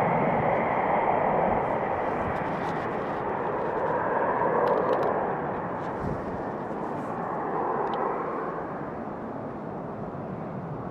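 Dassault Falcon 2000 business jet's twin rear-mounted jet engines at takeoff power: a steady, broad rushing jet roar that slowly fades as the aircraft accelerates away down the runway.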